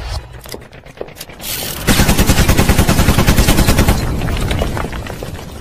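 Machine-gun fire sound effect. A few scattered sharp shots, then a dense rapid burst of about ten shots a second lasting roughly two seconds, which dies away over about a second and a half.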